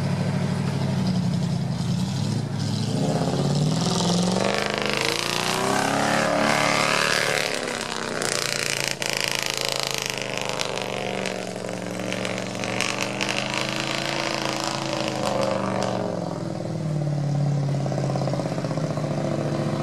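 Off-road vehicle engines revving hard while driving through deep mud and water, the pitch rising and falling as the throttle is worked. The engine noise is mixed with churning, splashing water, heaviest for a few seconds in the middle.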